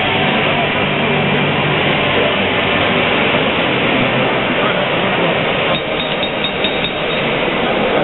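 Loud, steady crowd noise from a packed arena. About six seconds in, a rapid run of sharp metallic clinks joins it.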